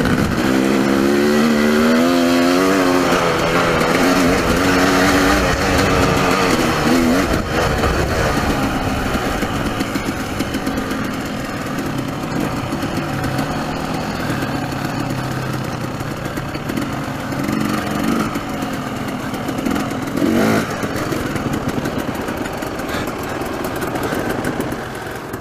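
Dirt bike engine running under way on a trail ride. Its pitch rises and falls through the first several seconds, then holds steadier and lower, with a constant rush of wind and riding noise over the helmet-mounted camera.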